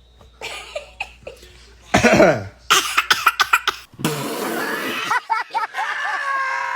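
A person coughing: one loud cough about two seconds in, then a quick run of short, sharp coughing sounds, before the background changes to a steady hiss with faint voices.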